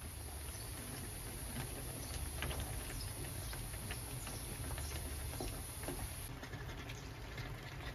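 Spicy red tteokbokki sauce simmering in a shallow pan, with many small bubbling pops, while a wooden spoon stirs the rice cakes and noodles and knocks lightly against the pan. A low steady hum runs underneath.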